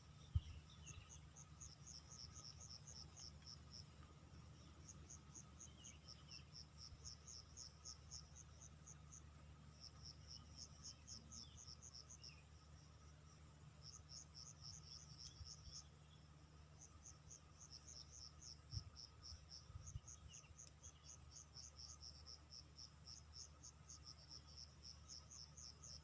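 Insects chirping in fast, high-pitched pulse trains that come in bouts every couple of seconds, over a faint low hum, with a soft knock about a second in and two more late on.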